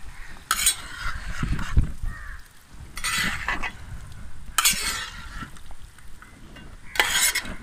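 Metal spatula stirring and scraping chicken masala in a wide uruli pan, in about four strokes, with the masala sizzling in between.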